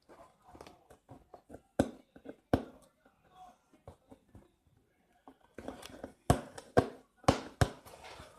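Hands working tape off a parcel and handling the box: scattered sharp knocks and taps, then scraping and rustling from about halfway, with a run of louder knocks near the end.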